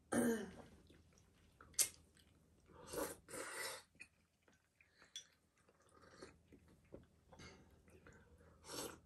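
A person eating noodles from a bowl with chopsticks: short noisy slurps and chewing a few seconds apart, the longest about three seconds in, with a sharp click near two seconds in.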